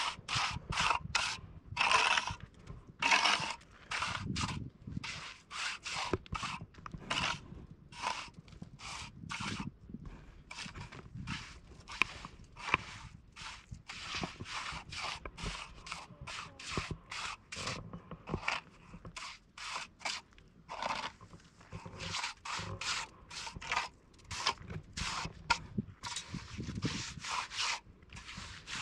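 Repeated scraping strokes, about two to three a second, with a few short pauses.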